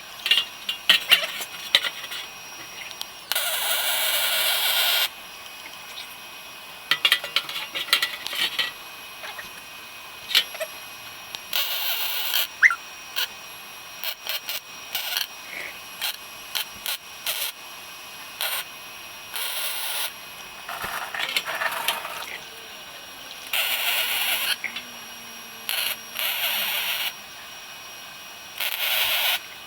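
Welder tacking exhaust pipe sections together: about seven short spells of steady hiss, each one to two seconds long, with scattered sharp clicks and taps between them.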